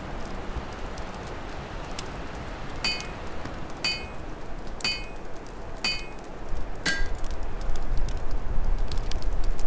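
Wind rumbling steadily with an open fire crackling. From about three seconds in come five ringing metallic clinks, one a second, the last lower in pitch, and the wind swells near the end.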